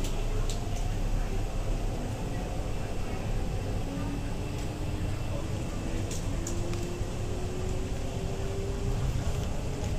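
Interior running noise of an MTR East Rail line R-train (Hyundai Rotem electric multiple unit) under way: a steady rumble with a motor whine that rises slowly in pitch from about four seconds in as the train gathers speed. A few short clicks come near the start and again around six seconds in.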